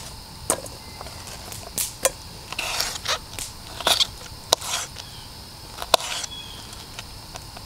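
Small knife cutting vegetables held in the hand over a skillet: scattered sharp clicks and a few short rustling scrapes as the pieces are cut and handled.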